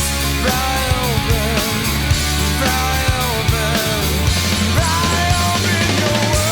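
Alternative rock band playing full-out: steady drums and bass under a melodic lead line that slides and bends in pitch.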